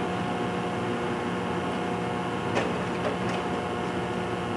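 Slide projector running with a steady fan hum, and two short clicks about two and a half and three seconds in as the slide changes.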